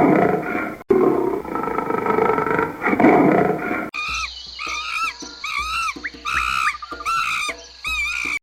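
A big cat roaring and growling for the first few seconds, with a short break just before one second in. About four seconds in it cuts abruptly to another animal's quick series of short, high, rising-and-falling chirping calls.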